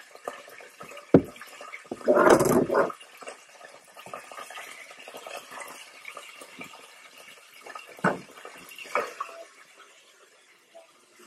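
Kitchen pan-and-utensil handling: a sharp knock about a second in, a short splashing burst of liquid about two seconds in, and two more knocks near the end, over a faint steady hiss.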